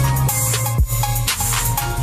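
Background music: an electronic hip-hop track with heavy sustained bass and a steady drum beat.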